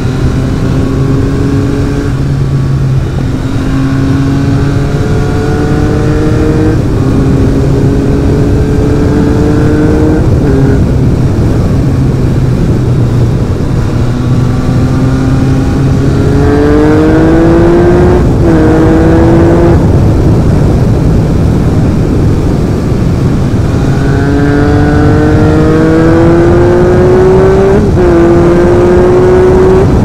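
Yamaha XSR900's inline three-cylinder engine through a carbon Akrapovic exhaust, loud, pulling hard through the gears. Its pitch climbs repeatedly and drops sharply at each upshift, with the steepest pulls about 16 and 24 seconds in.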